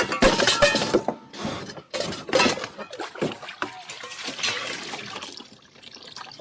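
Splashing water and knocking of gear against a kayak, in irregular bursts that die down over the last couple of seconds: a scramble after a tipped alcohol stove spilled burning fuel on the boat.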